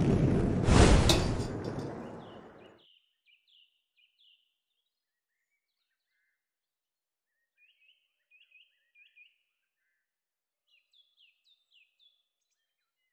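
A loud rushing roar of something plunging through the air, with a sharp crack about a second in, fading away over the next two seconds. After that, faint songbird chirps come in short repeated runs.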